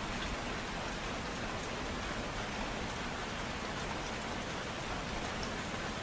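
Steady gentle rain, with faint individual drops ticking through it.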